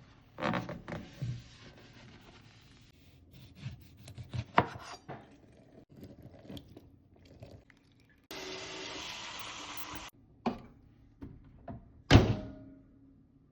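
Kitchen clatter from cleaning a microwave: items knocked, scraped and set down, a steady hiss lasting about two seconds past the middle, and one loud thunk with a ringing tail near the end.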